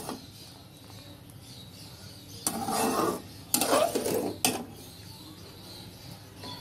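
Slotted metal spatula scraping and clinking against an aluminium pot while stirring simmering jaggery syrup, in three short bouts about a second apart starting a little over two seconds in.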